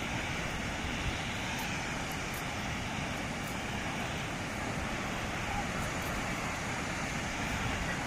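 Steady rushing noise of the Darbat waterfalls cascading down the cliff, with wind rumbling on the microphone.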